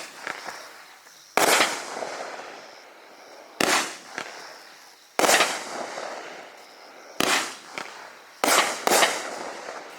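Raccoon Fireworks 'Festival of Joy' 500-gram firework cake firing. Six shots burst at irregular intervals of about one and a half to two seconds, with the last two close together near the end, and each is followed by a fading crackle.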